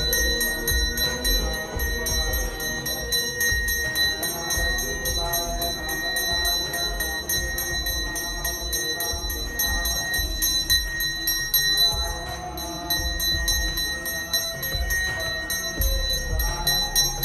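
A temple puja bell rung rapidly and steadily, a continuous fast clanging with a sustained high ring.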